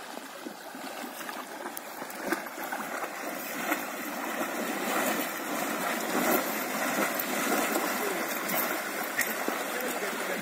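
Water splashing and sloshing around a horse wading chest-deep through a river, growing louder over the first few seconds as it comes nearer, with a couple of sharper splashes.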